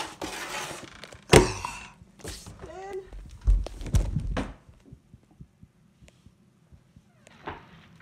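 Close rustling and body thumps picked up by a phone taped to a child's chest as he goes down onto the floor: a sharp knock about a second and a half in, a short vocal groan, then a cluster of heavier thumps around four seconds, after which it goes quiet.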